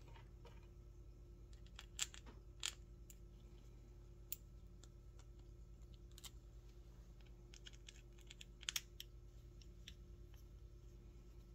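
Sparse sharp clicks and taps of small metal parts being handled and fitted on a jigsaw's aluminium gear housing: a few clicks about two seconds in, single taps later, and a quick double click near the end, over a faint steady hum.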